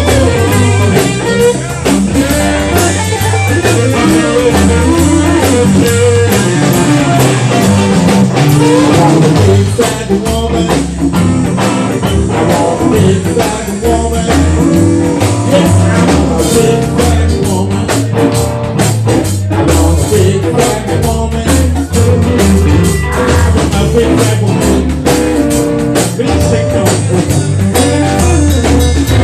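Live blues band playing loudly, with electric guitars, bass guitar and drum kit, and a man singing through a microphone.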